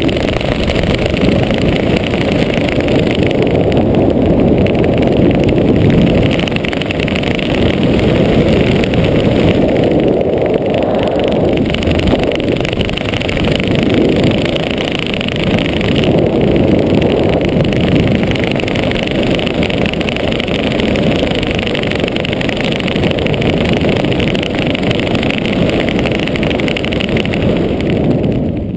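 Wind rushing over a GoPro's microphone during a parachute canopy descent: a loud, steady rushing noise that starts to fall away at the very end as the skydiver touches down.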